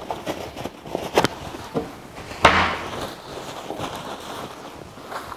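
Kitchen handling noises: a few light knocks and clatters, then a louder brief rustling scrape about two and a half seconds in.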